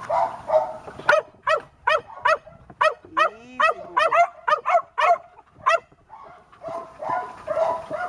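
Dog yipping in quick short yelps, about a dozen at two or three a second, stopping about six seconds in, with a lower whine partway through: excited over a dead bird.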